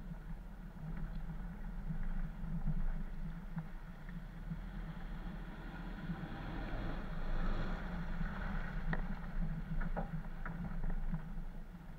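Toyota Land Cruiser 80 driving slowly over a muddy woodland track, its engine and tyres getting louder for a few seconds past the middle as it comes close, over a steady low hum. A few sharp clicks near the end.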